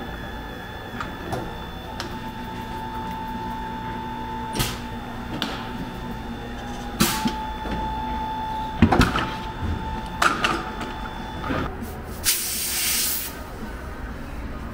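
Tyre-shop work: a steady machine hum with a faint whine, several sharp metallic knocks and clunks, and about a second of compressed-air hiss near the end.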